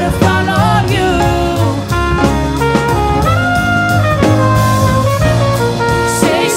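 Slow ballad music: an instrumental passage with a held, wavering melody line over bass and drums, without singing.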